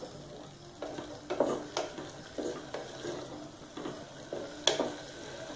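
Wooden spatula stirring and scraping vegetables and ground masala as they sauté in an aluminium pressure cooker, in repeated strokes about twice a second. There is one sharper tap about four and a half seconds in.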